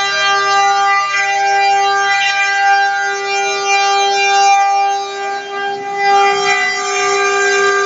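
Multi-spindle 4-axis rotary CNC router running, its spindles giving a loud steady whine with a string of overtones over the rasp of the bits cutting wood, dipping briefly about five seconds in.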